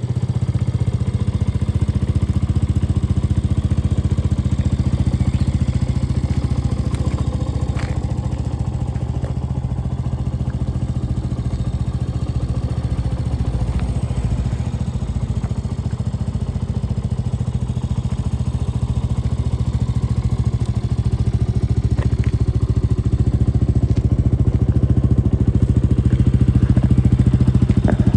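Benelli Tornado Naked T 125's single-cylinder 125cc engine idling steadily, with a few faint ticks.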